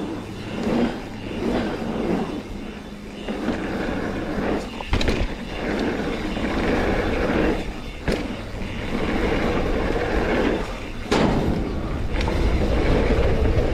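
Mountain bike rolling fast down a dirt trail: a steady rush of tyre and wind noise, with three sharp knocks as the bike hits the ground, about five, eight and eleven seconds in.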